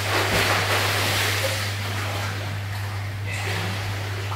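Water splashing from a swimmer kicking along a pool, heaviest in the first second or so and then easing off, over a steady low hum.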